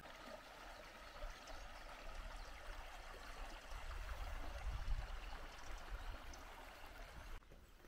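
A small brook flowing, a steady rush and ripple of water over a riffle. It cuts off suddenly just before the end.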